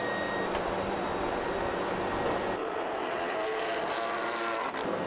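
Steady factory machinery noise from heavy steel chain production, with a pitched whine over it from about two and a half seconds in until near the end.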